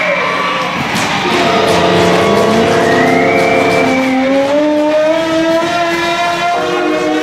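Loud horn sounding in several held tones that step and glide in pitch, with music, marking a goal in an ice rink.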